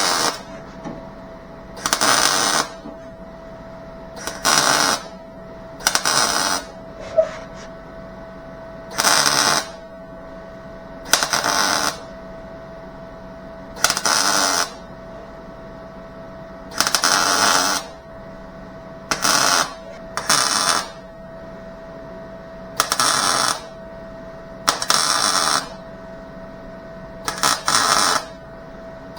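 Welder laying a series of short tack welds on the sheet-metal taillight panel: a crackling burst of half a second to a second, repeated roughly every two seconds, over a steady hum.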